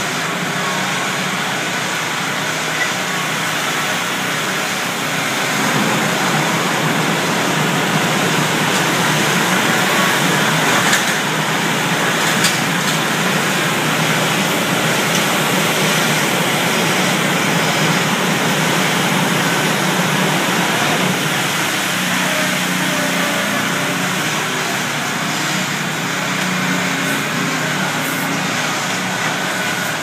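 Ready-mix concrete mixer truck's diesel engine running steadily as it drives the drum during the pour, with a couple of brief knocks about eleven and twelve seconds in.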